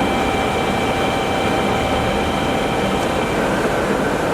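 DoAll by Romi 20H engine lathe running under power: a steady mechanical hum with a few steady whining tones from the geared head, the higher whines fading away about three seconds in.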